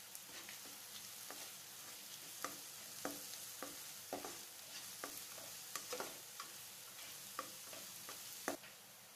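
Chopped shallots and dried red chillies frying in coconut oil in a nonstick kadai, with a quiet sizzle under the irregular scrapes and knocks of a spatula stirring them. The loudest knock comes near the end, and then the stirring stops.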